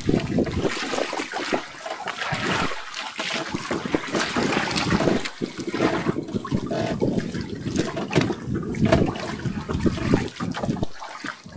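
Choppy sea water sloshing and slapping against the hull and bamboo outrigger of a small outrigger fishing boat, in uneven surges with irregular splashes.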